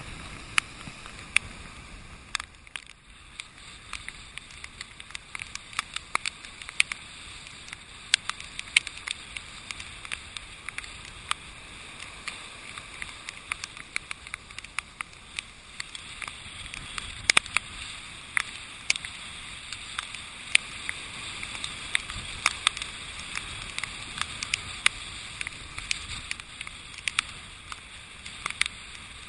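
Steady hiss of wind and storm surf, with irregular sharp ticks of rain and spray striking the GoPro.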